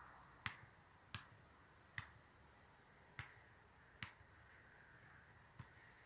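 Six short, sharp clicks at irregular gaps of roughly a second, against a very quiet background.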